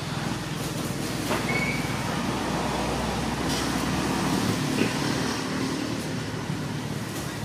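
Steady rumble of motor-vehicle traffic running nearby, with a brief high, steady note about one and a half seconds in.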